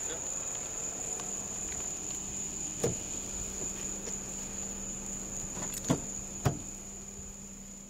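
Night insects trilling steadily in one high unbroken tone over a low steady hum, with three sharp knocks about three, six and six and a half seconds in.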